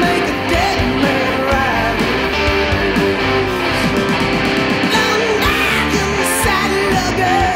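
Background rock music led by guitar, with a steady level throughout.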